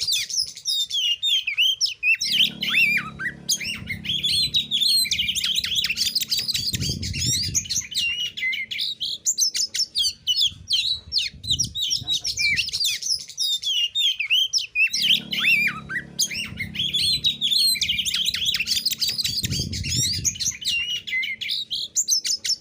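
Oriental magpie-robin singing a dense, fast run of varied chirps and whistles, the same sequence coming round again about every thirteen seconds. A low hum sounds under it twice.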